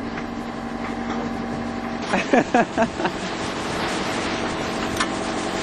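Sailboat's auxiliary engine running steadily, a constant mechanical noise. About two seconds in, a few short wavering vocal sounds come over it.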